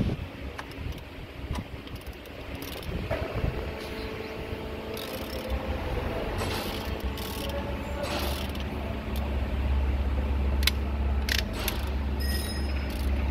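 Metal hand tools clicking and knocking as a socket on a long extension is handled and fitted onto a car engine's oil filter housing cap, over a steady low rumble that grows louder in the second half.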